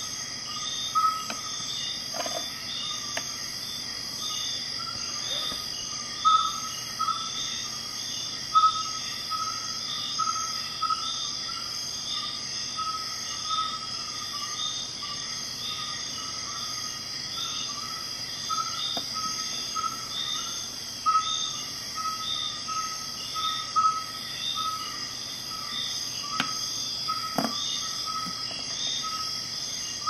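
Steady insect chirping with a regular pulse, about one and a half chirps a second. A few light clicks sound near the end.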